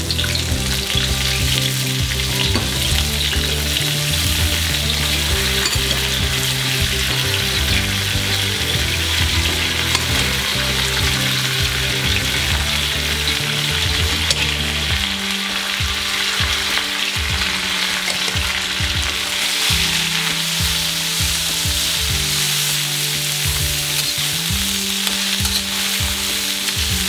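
Leafy greens and herbs stir-frying in hot oil in a stainless-steel wok over high heat: a steady sizzle, with a metal spatula tossing and scraping them.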